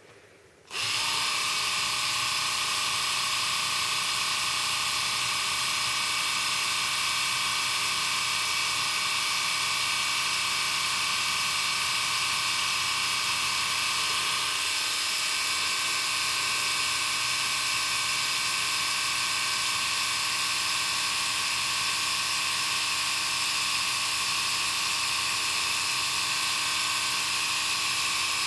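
Small electric epilator switching on about a second in, then running with a steady high whir.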